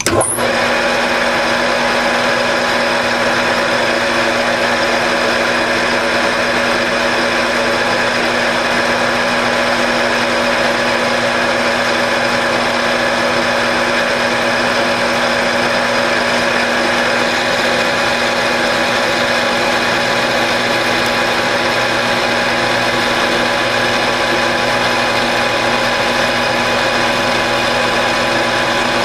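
Grizzly G4003G metal lathe running steadily while the turning tool cuts along the bolt's shank. It comes on suddenly at the start, and its geared head holds several steady whining tones throughout.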